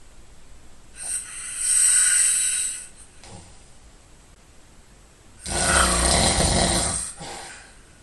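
A man snoring in his sleep. About a second in there is a breathy hiss, and at about five and a half seconds a deeper snore with a rapid flutter, which trails off.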